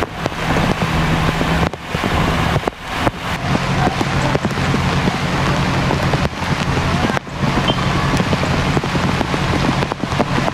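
Heavy rain and floodwater making a steady hiss, with a low steady hum underneath and a few brief dips in level.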